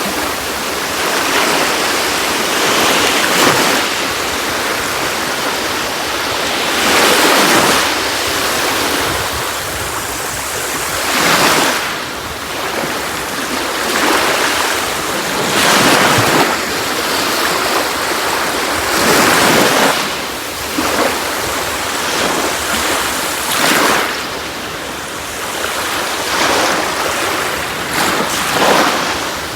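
Sea waves breaking on a beach, the surf swelling and washing in every few seconds over a steady rush of water.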